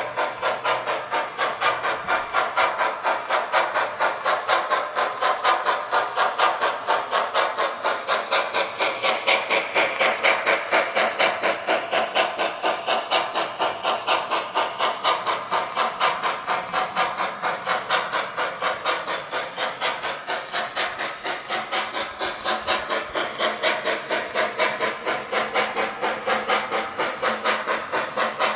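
DCC sound decoder in a Bachmann J11 00 gauge model steam locomotive, playing a steady run of steam exhaust chuffs with hiss at several beats a second. The sound is thin, with little bass.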